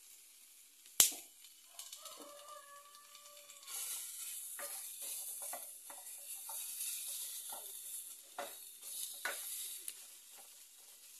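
Garlic and onion sizzling in a small enamel pan over a wood fire, with the fire crackling and a wooden spoon knocking and scraping in the pan. A single sharp pop about a second in, and the sizzle gets louder from about four seconds on.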